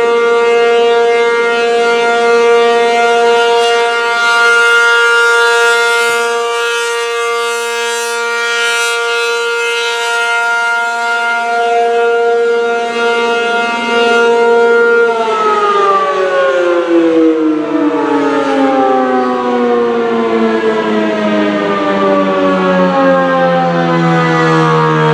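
ASC RM-135 mechanical outdoor warning siren sounding a steady Alert tone. About 15 seconds in, its pitch starts falling steadily as the siren winds down.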